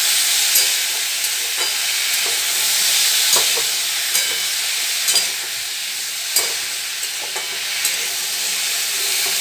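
Pumpkin pieces frying in hot oil in a metal kadai, a steady sizzle, with the spatula knocking and scraping against the pan about once a second as the pieces are stirred.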